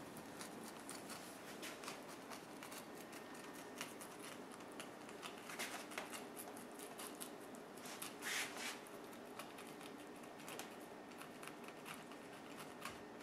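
Knife slicing along the top of a large fish's backbone from head toward tail: a faint run of small ticks and scrapes, a little louder about five and eight seconds in.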